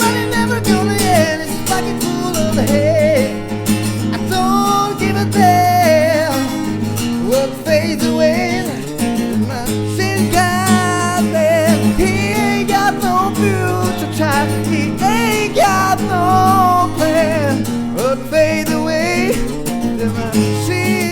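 Acoustic guitar music from a rock song cover: steady low chords under a melodic lead line that bends and wavers in pitch, with no sung words.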